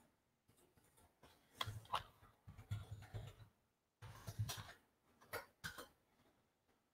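Faint computer keyboard and mouse clicks at a desk, irregular, with a few soft knocks in the middle.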